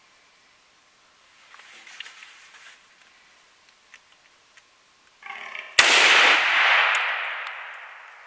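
A single hunting rifle shot about six seconds in: one sharp crack with a long echoing tail that dies away over two seconds. Just before it comes a short call lasting about half a second.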